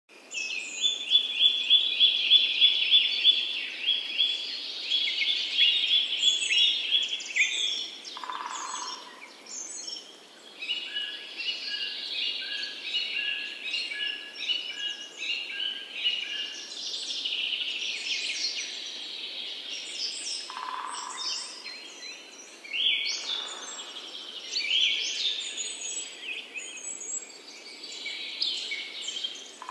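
A chorus of songbirds singing and calling over each other: rapid trills and runs of repeated chirps, with a few short lower calls now and then.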